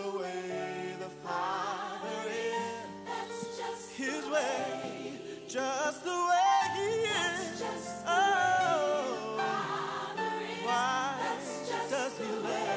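Gospel song: singing with backing voices over sustained instrumental accompaniment.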